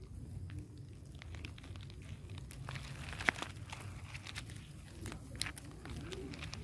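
Faint rustling and crackling of grass as a baby macaque crawls through it and paws at the stalks, with scattered small clicks and one sharper snap about three seconds in, over a low steady rumble.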